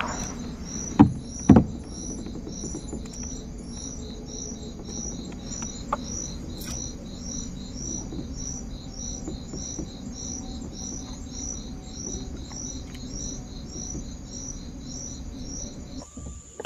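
Insect chirping in an even rhythm, about two high chirps a second, over a low background rumble. Two sharp knocks about a second in.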